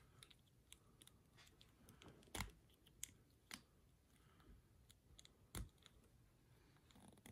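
Faint, scattered clicks and taps of a plastic action figure's joints and accessories being handled and posed, the loudest two about two and a half and five and a half seconds in.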